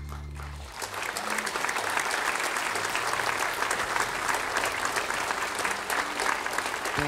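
Concert audience applauding at the end of a song, the applause swelling in about a second in as the band's last held chord dies away.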